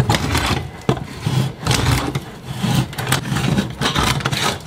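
Stuck, rusty sheet-metal part of a Coleman 502 camp stove being twisted and forced off by hand: continuous metal-on-metal scraping and grinding with scattered sharp clicks.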